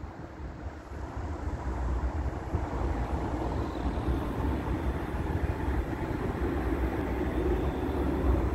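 Tram running along its rails, a steady rumble that grows louder over the first couple of seconds as it approaches, then holds.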